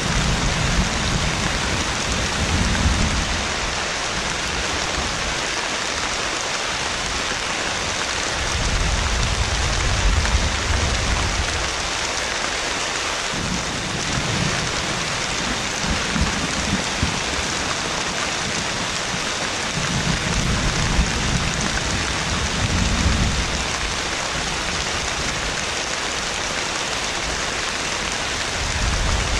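Heavy rain falling steadily in a thunderstorm, a dense even hiss, with rolls of thunder rumbling low every few seconds, five or so in all.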